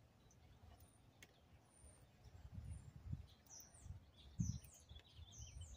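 Faint high bird chirps, with several short falling notes repeated in the second half, over a low rumble.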